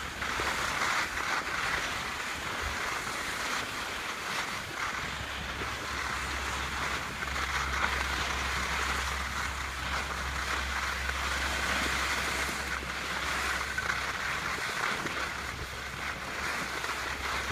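Skis sliding over snow with a steady hiss, and wind rumbling on the microphone.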